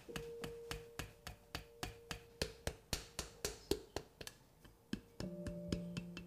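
Flat wooden paddle beating the round body of a Yixing clay teapot on a banding wheel: crisp, regular taps at about four a second. A steady soft tone sounds beneath, and a low chord of ringing tones comes in about five seconds in.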